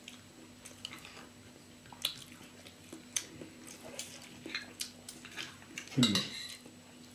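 Fork and knife clinking and scraping in a ceramic bowl at a meal, a scatter of light taps, with quiet chewing. A short vocal sound, like a brief hum, comes about six seconds in.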